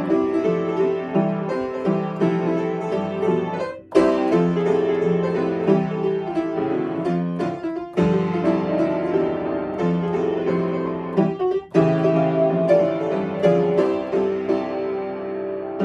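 Upright piano played with both hands: a melody over chords from a children's song medley, with brief breaks between phrases about 4, 8 and 12 seconds in.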